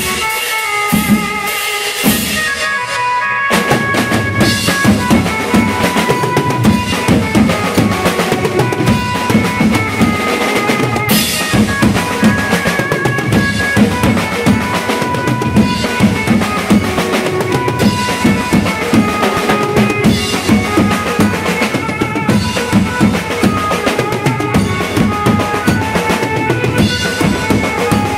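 Mumbai dhol-banjo party music: an Indian banjo plays a melody over dhol and other drums. The drumming comes in full and dense about three and a half seconds in and keeps a steady beat.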